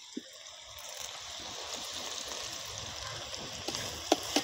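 Curry leaves and sliced onions sizzling in hot oil in a clay pot, the hiss swelling over the first second as the leaves go in and then holding steady. A few light clicks of the metal slotted ladle against the pot, mostly near the end.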